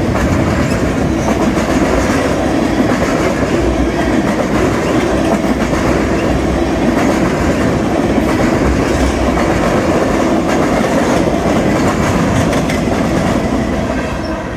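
Railroad cars of a passing train rolling by: a steady loud rumble with clattering wheels, easing off slightly at the very end.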